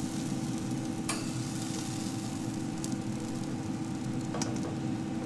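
Sauced chicken wings laid one by one with metal tongs on the hot grate of a Green Mountain Grill Daniel Boone pellet grill: a steady hiss with a faint hum underneath, and a sharp click of the tongs about a second in and again about four seconds in.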